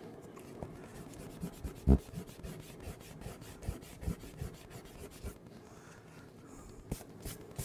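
A white eraser rubbed quickly back and forth on drawing paper held on a clipboard, rubbing out pencil lines. There is one dull knock about two seconds in, and the rubbing stops about five seconds in.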